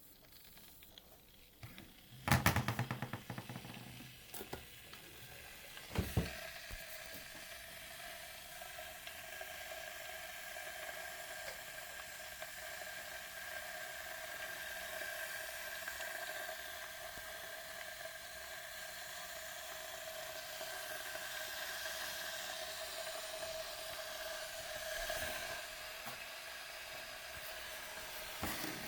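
Tefal Thermovision KI410D30 electric kettle heating water: after a quick run of clicks and then a single click about six seconds in, a steady hiss with a held high singing tone sets in and slowly grows louder as the element starts to heat the water.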